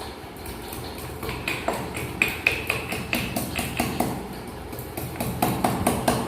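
Metal pestle pounding ginger in a hamandista, an iron or brass mortar: quick ringing strikes, about four a second, starting about a second in.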